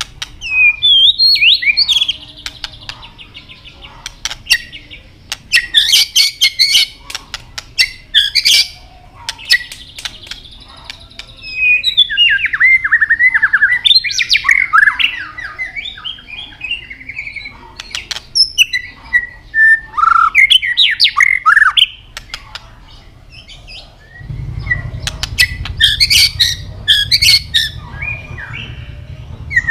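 White-rumped shama singing: varied whistled phrases that swoop up and down in pitch, broken by bursts of sharp clicking 'tạch' calls about six seconds in and again near the end. A low rumble comes in near the end.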